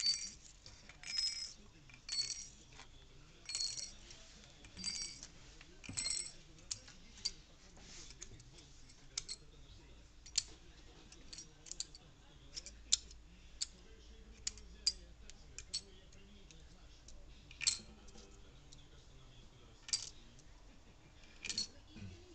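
Small steel parts of a cylinder head clinking and clicking as they are handled during reassembly. The first few seconds hold a run of ringing metallic clinks about once a second, then sharper clicks come at irregular intervals.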